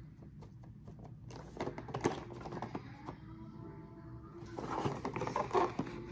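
Plastic blister pack on a cardboard backing card being handled and turned over in the hands: crinkling, clicking and tapping in two clusters, about a second and a half in and again about four and a half seconds in.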